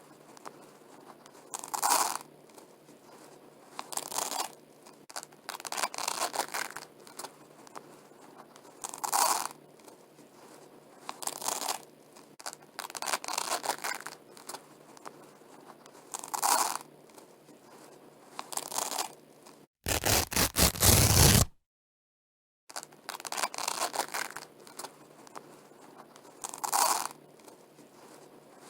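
Velcro hook-and-loop strips being pulled apart over and over, a rasping rip about every two seconds. About two-thirds of the way through comes one louder, harsher burst, after which the sound cuts out completely for about a second.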